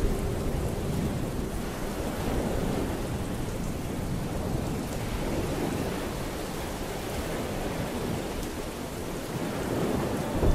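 Steady rain with a low continuous thunder rumble, a thunderstorm ambience. A last held music note fades out about a second in.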